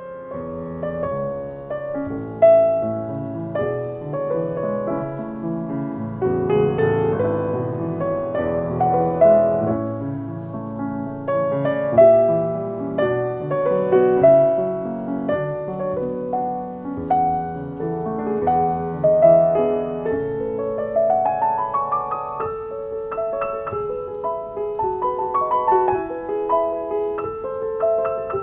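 Solo piano playing a melodic piece with chords, the notes struck and left to ring. About 20 seconds in, a quick run of notes climbs upward.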